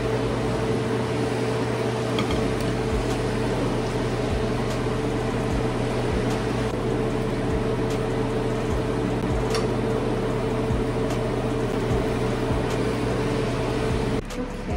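Steady hum and rushing noise of a running kitchen appliance with a low drone under it; it cuts off suddenly near the end. A few faint taps of utensils and dishes being handled.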